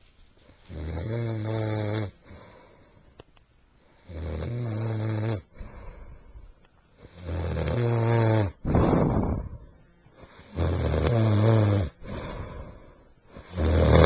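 A sleeping man snoring: four loud, low snores about three seconds apart, each lasting over a second, the third followed by a noisy breath out.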